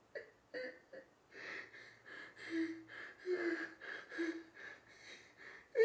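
A man sobbing behind his hands: ragged gasping breaths and sniffs, broken by a few short, low whimpering moans.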